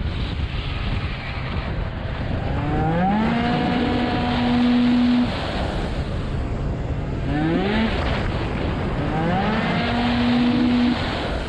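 Small two-stroke racing scooter engine, heard onboard under heavy wind rush: it revs up quickly to a high, steady pitch, holds there, then cuts off abruptly as the throttle is shut. This happens twice, with a short blip of revs in between.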